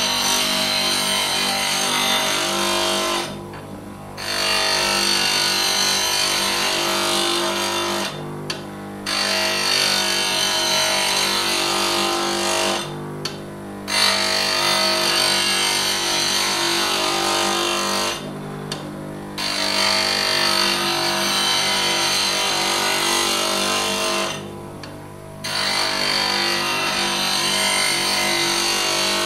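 Power grinder sharpening a tool in six grinding passes of about three to five seconds each, a gritty high grinding over a steady motor whine. In the short breaks between passes, about a second each, only the motor's hum remains as the tool is lifted from the wheel.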